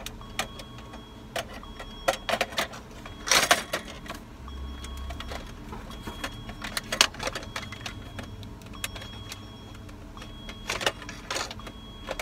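Hard plastic and metal clicks and rattles as a car stereo unit and its wiring harness connectors are handled and pushed into the dash, loudest in clusters about three and a half, seven and eleven seconds in. A faint high beep repeats every second or so over a steady low hum.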